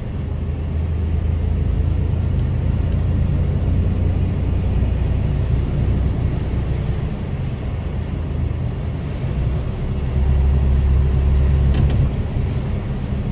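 Inside the cab of a Mercedes Actros lorry driving on a wet road: a steady low engine and road rumble with a light hiss of tyres on water, getting louder about ten seconds in.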